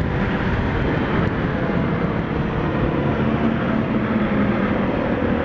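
Motorcycle riding at a steady speed: a constant wind rush over the rider-mounted microphone, with the engine's even hum underneath.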